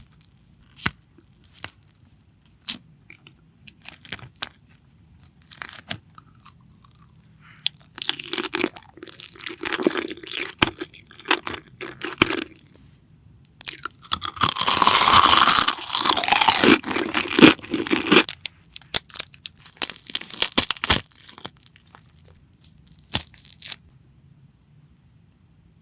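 Close-up crunching, crackling and clicking of boiled eggs being handled and eaten. It starts as scattered single clicks and grows into a dense, loud run of crackling a little past halfway, then thins out to sparse clicks again.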